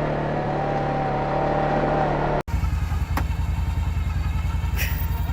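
ATV engine running with a thin steady whine over it. About two and a half seconds in, the sound cuts off abruptly and resumes as a steady, even pulsing of the engine.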